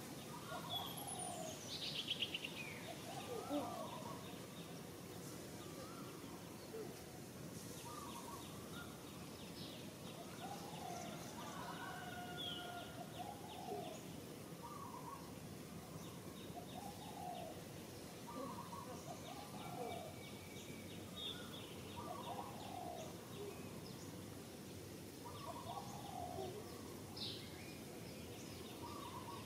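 Birds singing: one bird repeats a short warbled phrase every two to three seconds, with thinner high chirps in between, over a steady outdoor hiss.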